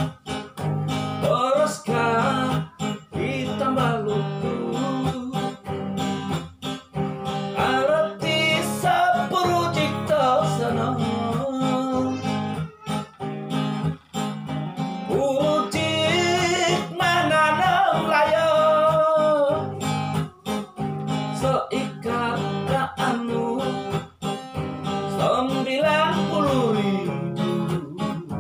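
Acoustic guitar strummed steadily while a man sings a wavering melody over it.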